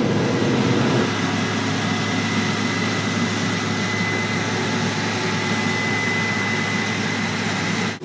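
Case IH combine harvesting corn: a steady, dense machine drone from the engine and threshing works, with a thin high whine held through most of it.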